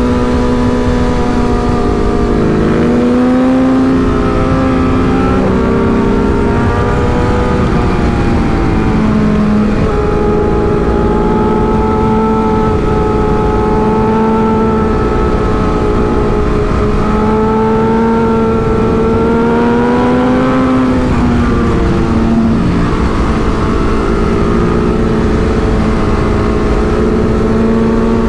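Sport motorcycle's inline-four engine heard from the rider's seat, running at mid-to-high revs through a run of bends, its pitch rising and falling with the throttle several times. Low wind rush is on the microphone throughout.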